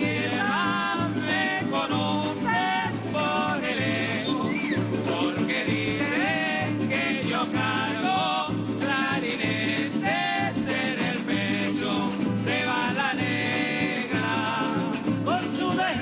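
Venezuelan golpe larense played live by a string-and-drum ensemble: cuatros and guitar strummed over a steady hand-drum beat, with a melody line gliding above.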